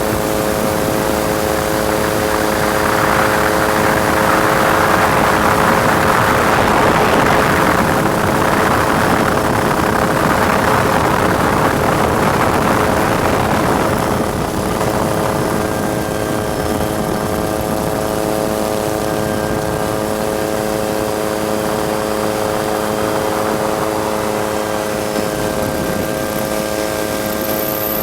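Helicopter running steadily overhead, a constant hum of even tones, with a louder rushing noise swelling up between about 3 and 14 seconds in.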